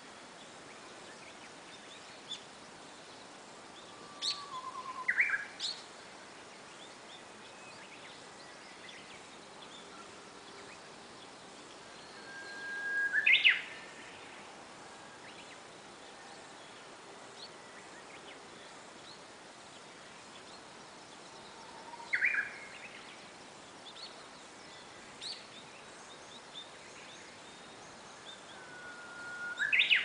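Japanese bush warbler (uguisu) singing its hoo-hokekyo song four times, about every eight or nine seconds: each song is a long held whistle followed by a quick rising flourish, the last one coming near the end. Faint short chirps sound between the songs.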